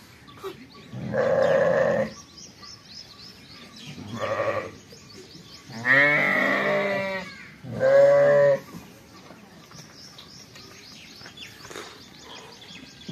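Lambs bleating: four calls, the third the longest, with a quavering pitch.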